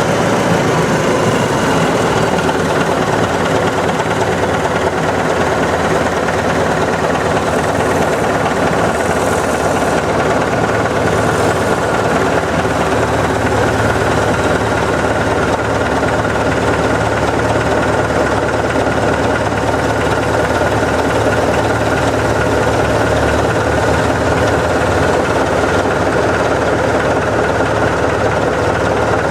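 Heavy Caterpillar diesel earthmoving machinery running steadily, a continuous engine drone with no breaks.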